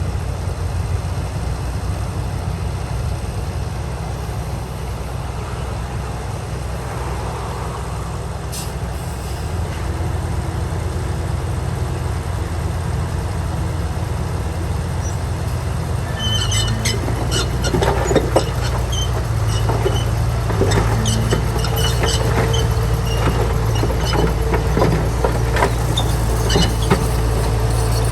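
Bulldozer's diesel engine running steadily under load, joined a little past halfway by repeated metallic clanking and squeaks.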